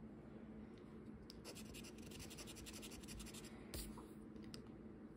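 Faint scratching on a scratch-off lottery ticket, rubbing off the coating in a quick run of short strokes from about a second and a half in to nearly four seconds in, with a few single strokes around it.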